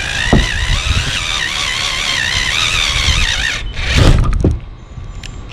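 Cordless drill boring a hole through a Ford Transit van's sheet-metal roof, the bit squealing with a wavering pitch. About four seconds in there is a loud burst of noise, and then the drill goes quiet.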